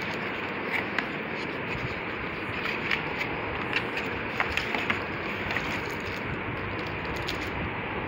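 A plastic-wrapped metal plaque being lifted out of its box: scattered light crinkles, taps and scrapes of the plastic wrap and box over a steady background hiss.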